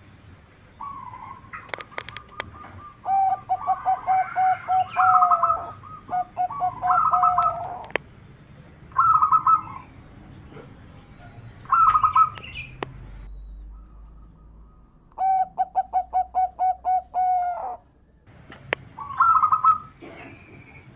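Zebra dove (perkutut) cooing in repeated bouts, each a quick run of short staccato coo notes ending in a drawn-out note. Bouts come about every two to three seconds, with a longer pause near the middle.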